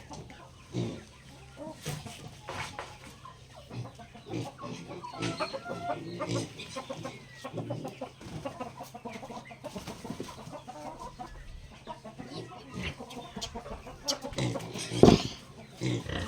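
Backyard chickens clucking in short, irregular calls, with one much louder sudden sound near the end.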